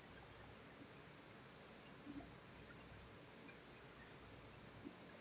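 Faint crickets: a steady high-pitched trill that swells slightly at fairly regular intervals, over near silence.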